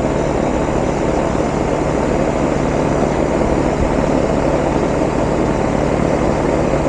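A 1996 Ruud R22 air-conditioning system running: the steady rush of the outdoor unit's fan over a low, even compressor hum. The system is running normally, with its pressures reading good.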